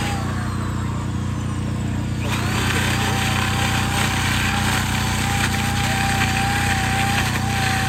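Chainsaw being used to carve wood. From about two seconds in it cuts harder and gets louder, with a steady high whine over the engine.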